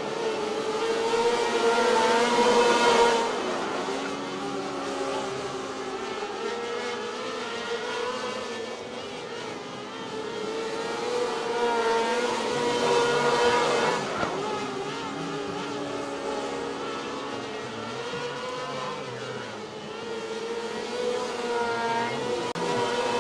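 A small pack of 600cc winged micro sprint cars racing on a dirt oval, their high-revving motorcycle engines swelling and fading as the cars come past about every ten seconds, three times.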